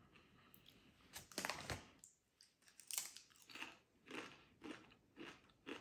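A person biting into and chewing crunchy Doritos tortilla chips. There is a bite about one and a half seconds in, then steady crunching chews about twice a second.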